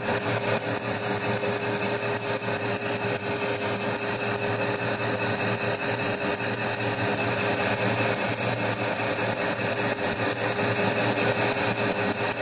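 Tri-Beam Q-switched Nd:YAG laser firing a rapid, regular series of pulses, each a sharp click, over the steady hum of the laser unit, as it treats a café-au-lait macule.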